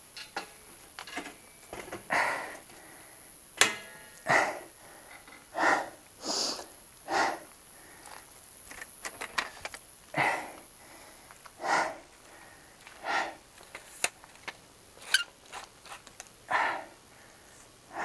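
Hard breathing, one puff about every one and a half seconds, with a few sharp clicks.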